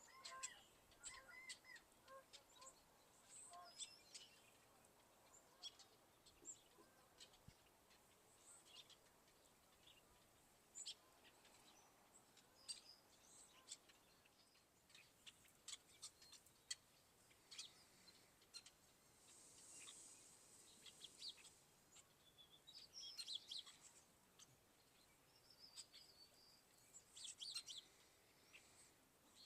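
Faint chorus of small songbirds chirping and trilling in short, scattered bursts, with a few lower calls near the start.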